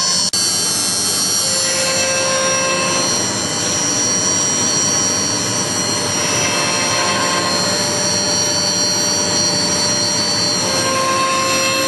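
Steady loud running of a CNC router workshop's dust collector blower and vacuum pump, a continuous mechanical noise with a constant high whine over it. It breaks off for an instant just after the start.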